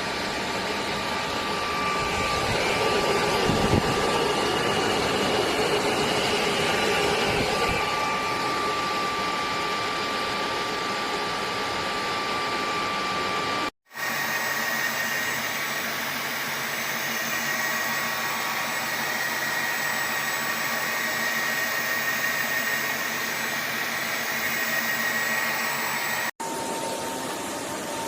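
Cordless wet and dry vacuum mop running: a steady motor whine over a rush of suction. It breaks off abruptly twice and comes back with a slightly different pitch.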